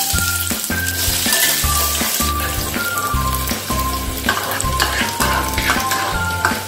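Sliced onions and garlic paste frying in hot oil in a saucepan: a steady sizzle. Background music with a repeating bass line plays underneath.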